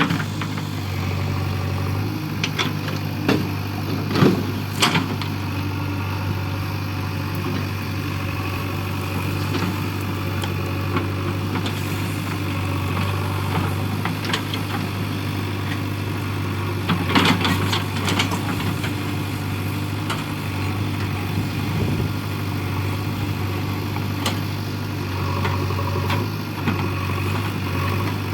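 JCB 3DX backhoe loader's diesel engine running steadily at low revs. A few sharp knocks or cracks come over it, two about four seconds in and a cluster near the middle.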